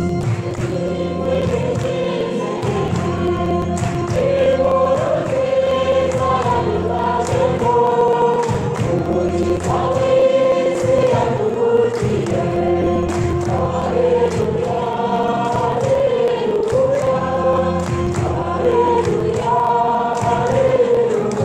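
A choir singing a Christmas gospel song over instrumental backing with a steady beat.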